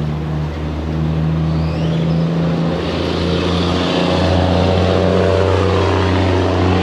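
Heavy truck's diesel engine running under load as a double-trailer rig moves slowly, a steady low engine note that grows louder about a second in and again about four seconds in.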